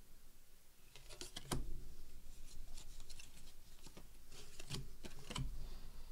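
Cardboard baseball cards being flipped through by hand, sliding and rubbing against each other, with several sharp card snaps scattered through.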